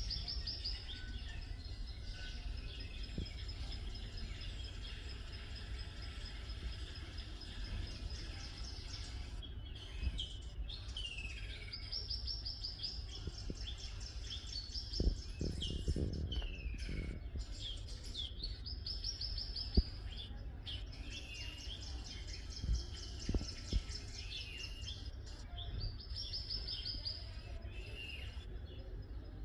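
Birds singing: one bird repeats a fast, high trill in phrases every few seconds, the first one long, while others give shorter chirps that slide downward in pitch. A steady low rumble runs underneath, with a few short low thumps around the middle.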